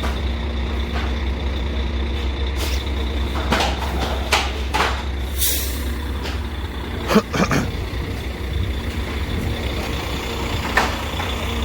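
Heavy truck diesel engine idling steadily, with a few scattered knocks, a short hiss of air about five and a half seconds in, and a pair of louder knocks a little after seven seconds.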